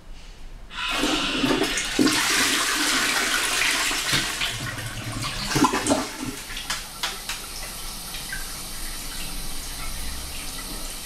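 Toilet flushing: a sudden rush of water about a second in, loudest for the first few seconds, then dropping to a quieter steady hiss as the cistern refills.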